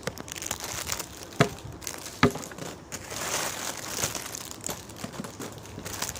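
Plastic candy packaging crinkling as it is handled, with two sharper clicks about a second and a half in and again just after two seconds.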